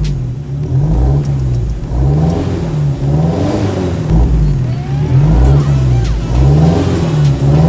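Car engine revved in repeated short throttle blips through an HP Performance twin-tip aftermarket exhaust, the pitch rising and falling about once a second.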